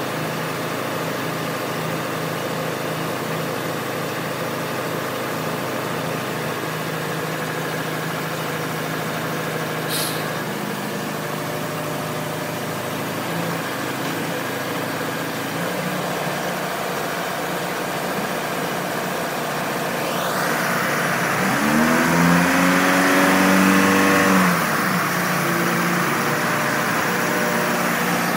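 Detroit Diesel engine of a 1988 Trackmobile 95TM railcar mover running steadily as the machine drives. About three-quarters of the way through, the engine revs up, rising in pitch and getting louder for a few seconds, then drops back.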